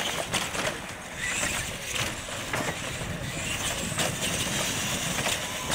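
Radio-controlled monster trucks running flat out on concrete: motors whining and tyres rolling, with a few sharp knocks as a truck comes down off a ramp.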